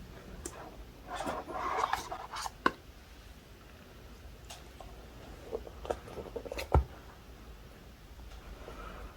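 Handling of a phone's retail box and its packaging: a spell of rustling, scattered light clicks and taps, and one sharper knock about seven seconds in.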